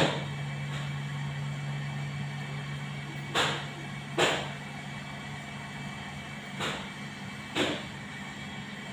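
Head lice being cracked between fingernails while picking through wet hair: short, sharp clicks coming irregularly, about five in all, over a steady low hum.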